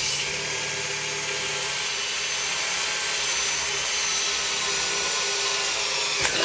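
Electric power drill running steadily under load, boring a small pilot hole through the delivery box, with a steady motor whine over the cutting noise.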